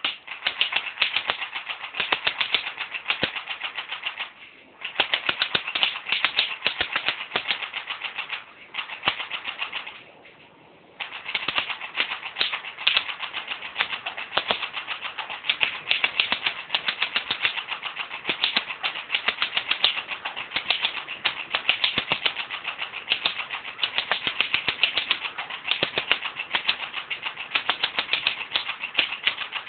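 WELL D90F P90-style BB gun firing in long rapid strings of shots, with short pauses about four, eight and ten seconds in.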